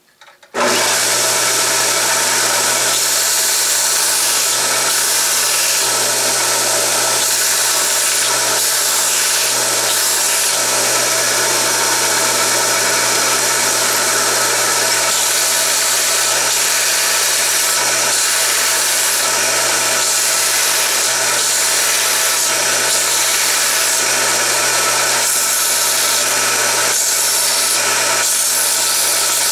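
Homemade 2x48 belt sander switched on about half a second in, its electric motor and abrasive belt then running steadily with a low hum.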